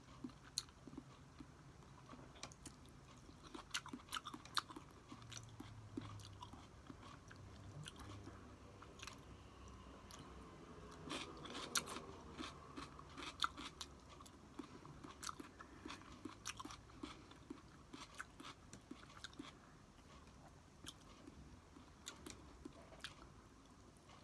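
A person chewing and biting food close to the microphone, with crunchy bites and small sharp clicks, busiest around the middle.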